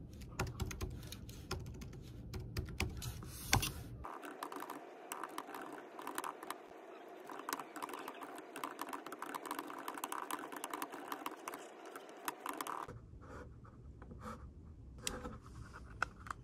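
Typing on a compact wireless keyboard with round plastic keys: quick runs of light key clicks, thinning out near the end.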